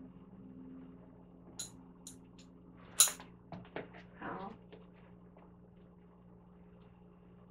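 Flower-arranging handling sounds: a few light clicks, then one sharp snip about three seconds in, followed by a short rustle of a fatsia leaf and its stem being handled.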